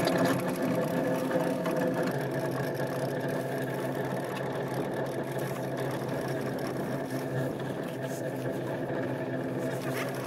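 Wildcat's gondola lift running: a steady mechanical whir with an even, unchanging hum, heard from inside the small cabin as it climbs the cable.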